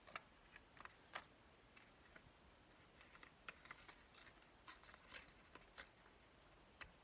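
Near silence with faint, scattered light taps and clicks, about a dozen, from paper craft pieces being handled and laid down on a work table.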